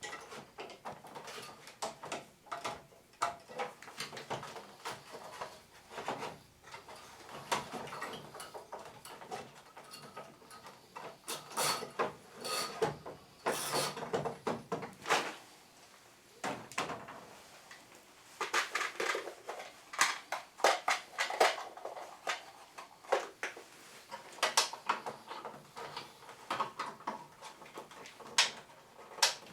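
Plastic parts of an air conditioner's indoor unit being handled and taken apart: irregular clicks, knocks and short scrapes as covers and components are unclipped and set down.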